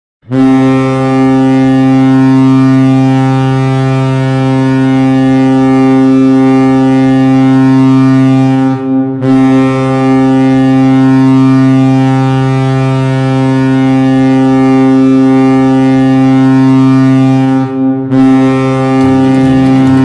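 Vegas Golden Knights goal horn: a deep, loud horn sounding in three long blasts of about eight and a half seconds each, with short breaks between them; the third blast runs on.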